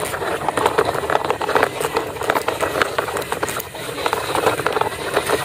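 Plastic toy box truck pulled on a string over cracked dry mud and grass, its plastic wheels and body rattling and clattering in a dense, uneven stream of clicks.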